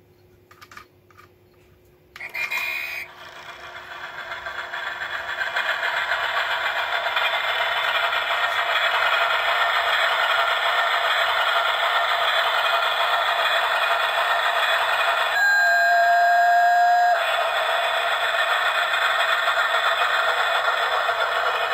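Flying Scotsman cuckoo clock's steam-train sound effect playing as its model train runs: a few clicks, then a sudden start about two seconds in. A running sound grows louder over a few seconds and holds steady, broken near the middle by a whistle held for about two seconds.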